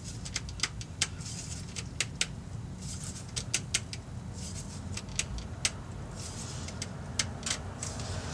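Scattered sharp clicks and taps, a few each second and unevenly spaced, from hand work on the oil filter and drain plug under the vehicle, over a steady low hum.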